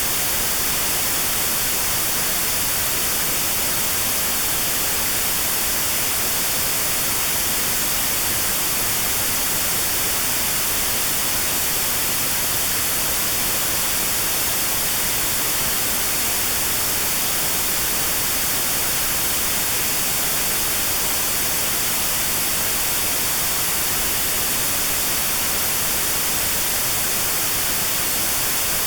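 Steady synthetic white noise with a narrow band around 4 kHz removed: notched sound therapy for tinnitus. It is an even hiss, brighter in the highs, with no change in it.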